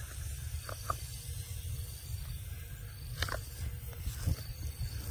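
Outdoor background noise: an unsteady low rumble with a few faint short clicks, two close together under a second in and two more in the second half.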